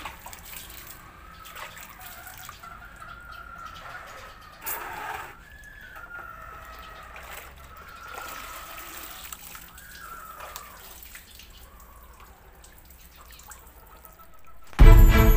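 Water sloshing and dripping as a gamecock is dunked and washed in buckets of plain and soapy shampoo water, with a louder splash about five seconds in. Roosters crow faintly in the background. Music cuts in abruptly near the end.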